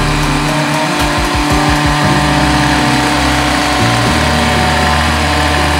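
Background music with a deep electronic bass line that steps from note to note every second or two, with a quick run of beats in the first couple of seconds.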